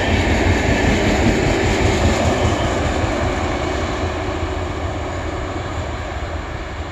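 Rumble and rolling noise of an express train's LHB passenger coaches running past on the track. It fades steadily as the last coach goes by and the train draws away.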